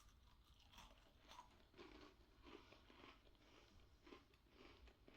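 Close-up chewing of a crumbly, sablé-like waffle cookie with a sakura filling: soft, faint crunches at about two a second.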